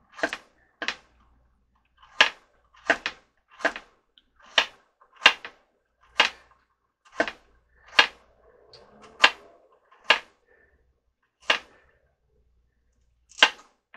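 Kitchen knife slicing carrots thin on a cutting board: a string of sharp chops at an uneven pace, about one a second.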